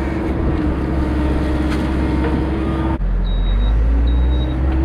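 Cat backhoe loader's diesel engine running under load with a steady hydraulic whine. About three seconds in the sound changes abruptly, the whine rises and holds, and a high warning beep starts repeating a little more than once a second.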